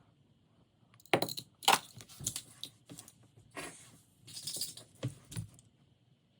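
Die-cast toy cars being handled, clinking and rattling against each other and a hard surface in a run of sharp clicks and clatters that starts about a second in and stops about a second before the end.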